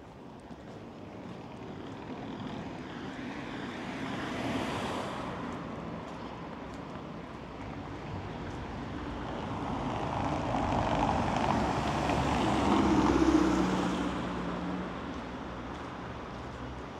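Street traffic passing: one vehicle goes by about four seconds in, then a louder one swells up and passes around thirteen seconds in, with a low engine hum.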